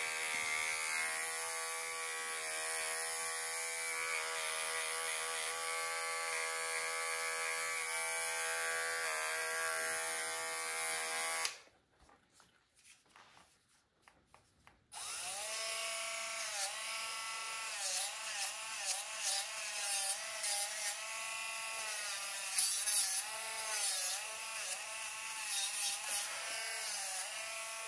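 A small cordless pet trimmer buzzes steadily, clipping the hair between a dog's paw pads, and stops about eleven seconds in. After a few seconds of quiet, a cordless nail grinder with a diamond bit runs on the dog's nails, its pitch dipping and recovering again and again, with small clicks.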